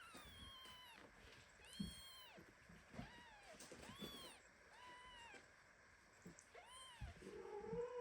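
Newborn kitten mewing repeatedly: about seven short, high-pitched mews, each rising and falling in pitch.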